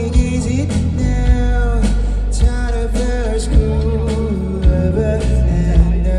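Indie rock band playing live, a sung melody over bass, guitar and a steady drum beat.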